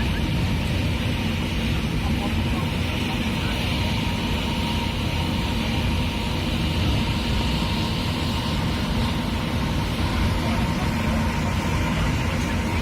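Steady low rumble with rushing wind noise over it on a moving ship's deck, unchanging throughout, with a faint steady hum.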